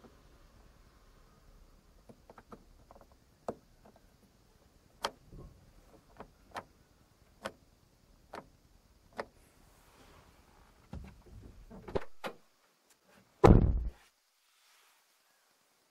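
Small plastic clicks and taps from handling an LED panel and its wiring connector at a car's ceiling dome-light housing: about a dozen sharp, separate ticks over several seconds. Near the end comes one louder low thud, the loudest sound.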